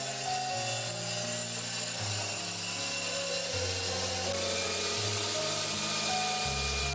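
Small benchtop table saw running steadily, its blade cutting through plywood pushed across it on a sled.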